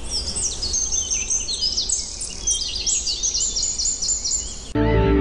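Many birds chirping at once in a dense chorus of quick, high, falling notes over a low steady background hum. Near the end the chorus cuts off and music comes in.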